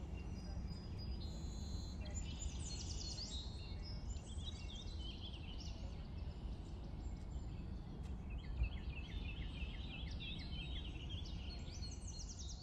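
Small birds chirping and trilling in quick repeated runs over a steady low outdoor rumble, with one brief soft low bump about two-thirds of the way through.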